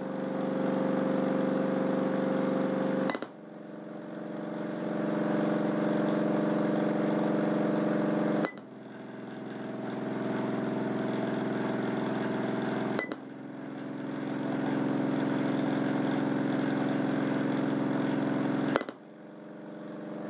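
Crossfire C3 12-inch subwoofer driven with a low bass test tone near 45–50 Hz, heard as a steady buzzing hum. Four sharp clicks break it as the tone is switched, and after each one the level drops and swells back up.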